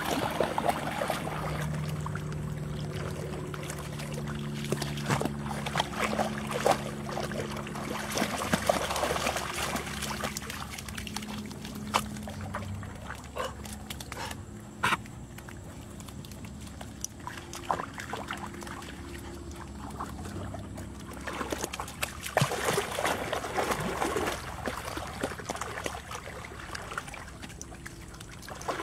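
Dogs wading and paddling through shallow water, with irregular splashing and sloshing that comes and goes, busiest in two stretches.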